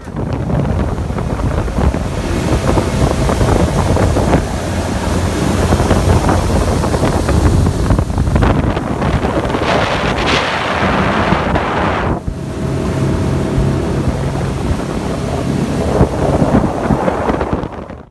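Boat running on open water: loud, steady wind rush on the microphone over engine hum and water noise.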